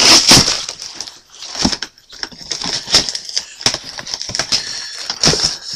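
Packaging being handled and unwrapped by hand: dense crinkling and crackling with scattered sharp clicks, loudest in a burst at the very start.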